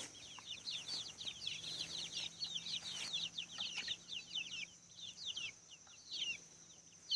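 A flock of young chickens peeping: many short, high, falling cheeps overlapping, thinning out toward the end.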